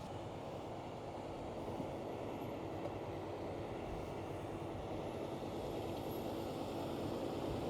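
Fendt 936 Vario tractor's engine running steadily, growing slightly louder.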